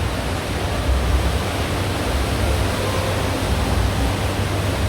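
Heavy downpour: a dense, steady hiss of rain with a low rumble underneath.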